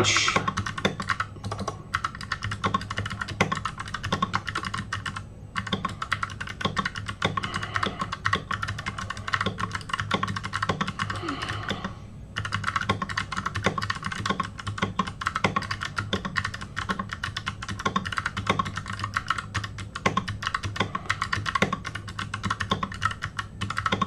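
Fast, continuous typing on a computer keyboard, many keystrokes a second, with a few brief breaks, the longest about twelve seconds in.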